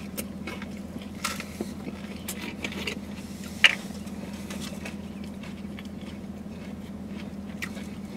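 Crunchy chewing of bagel sandwiches filled with cream cheese, Takis and Flamin' Hot Cheetos: scattered soft crunches and mouth clicks, with one sharper click about three and a half seconds in. A steady low hum runs underneath.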